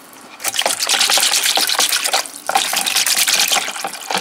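Silicone whisk beating tomato paste into water in a plastic bowl: rapid sloshing, splashing strokes that break off briefly a little past two seconds in.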